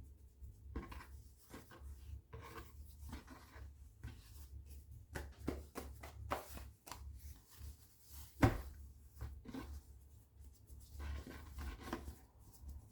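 Hands rolling and shaping baguette dough on a floured wooden board: soft, irregular rubbing and scraping, with one sharper knock about eight seconds in.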